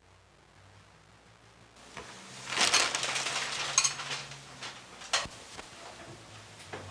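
A newspaper rustling and crinkling as it is lowered and set down on a table, with a few light clicks. It starts after about two seconds of near quiet and is loudest just after it begins.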